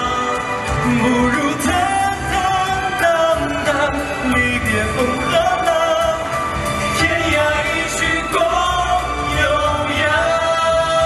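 A man singing a slow Chinese pop ballad live into a handheld microphone over a full backing track, holding long, gliding notes.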